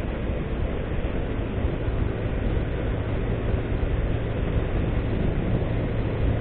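Honda CG 160 Fan motorcycle on the move, its single-cylinder engine running steadily at cruising speed under a heavy, even rush of wind noise.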